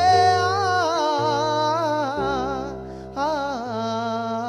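A man sings a Tamil Christian worship song into a microphone, drawing out long wavering notes with a short break about three seconds in. Sustained instrumental chords accompany him and change every second or so.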